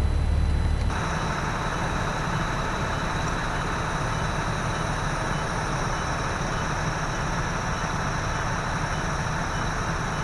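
Steady mechanical drone of idling vehicle engines, with faint constant high whines. About a second in it changes abruptly from a deep low rumble to a higher, hissier drone.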